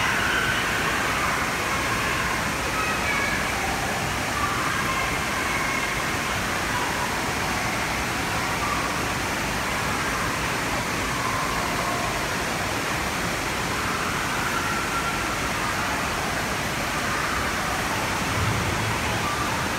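Steady wash of indoor water park noise: rushing water with faint, indistinct crowd voices mixed in.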